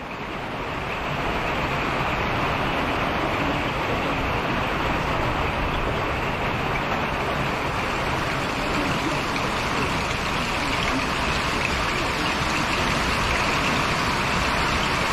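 Heavy tropical rain pouring down onto wet paving, a steady loud hiss.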